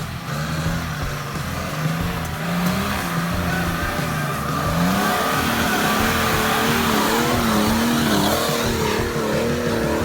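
GAZ-69 off-roader's engine running hard under load, its pitch wavering up and down as the throttle is worked and climbing higher about halfway through.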